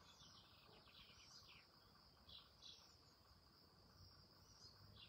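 Near silence: faint outdoor ambience of a steady high insect buzz, with a few short bird chirps.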